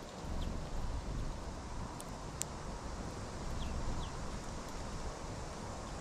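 Low wind rumble on the microphone. About two seconds in come two sharp clicks from a small bird pecking among sunflower seed husks close to the mic, along with a few faint, short high chirps of birds.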